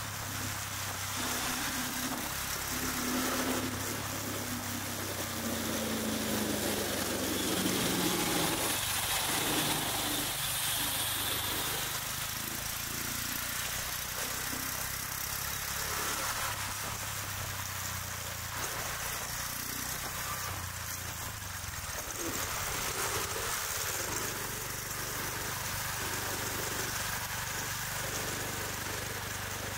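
Street traffic: motor scooters and cars passing, with steady engine and tyre noise. One engine note falls in pitch as it goes by, about three to nine seconds in.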